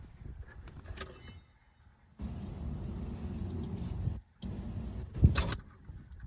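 Handling noises of work on the fuel-line quick-disconnect fittings: low rumbling and rubbing, with small metallic clinks and one sharp metal clank about five seconds in.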